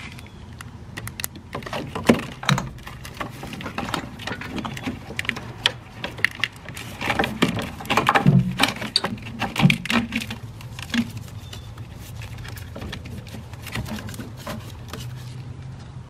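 Irregular clicks, knocks and rubbing of a new battery cable in corrugated plastic loom being handled and fed into place in a car's engine bay, over a steady low hum.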